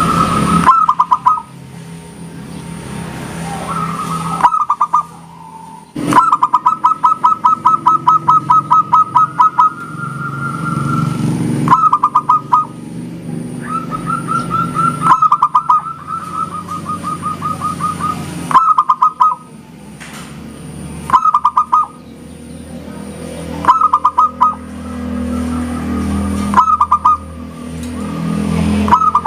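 Zebra dove (perkutut) cooing in a series of repeated phrases. Each phrase is a quick run of pulsed notes, some ending in a held note, with short pauses between phrases. A steady low rumble runs underneath.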